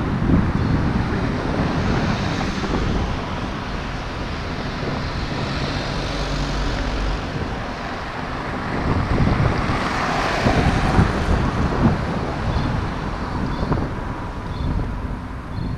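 Street traffic with wind buffeting the microphone; a car drives past about ten seconds in.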